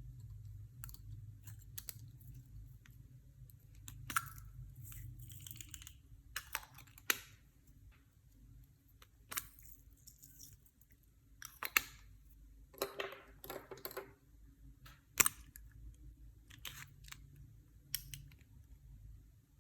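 Clear slime being pressed and folded by hand, giving scattered sharp clicks and small pops, with a longer crackling stretch a little past the middle.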